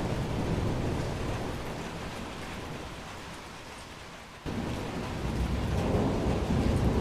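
Steady noise of heavy rain and rushing floodwater with a low rumble. It fades for a moment, then cuts back in abruptly about four and a half seconds in.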